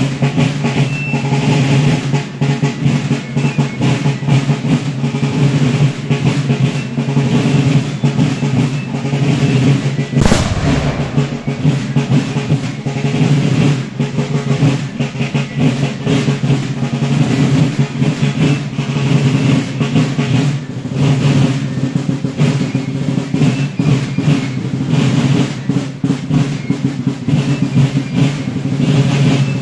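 Marching snare drums playing continuous rolls and beats as the column marches. About ten seconds in comes a single loud bang, a blank musket shot.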